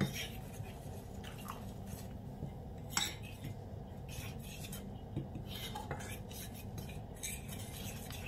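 Small metal whisk stirring thick chickpea-flour batter in a ceramic bowl, faintly scraping with occasional clinks against the bowl, the sharpest about three seconds in.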